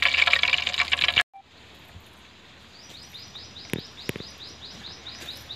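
Fish steaks deep-frying in hot oil, a loud crackling sizzle that cuts off abruptly about a second in. Then quiet open air, in which a bird calls in a rapid series of short high chirps, with two light clicks among them.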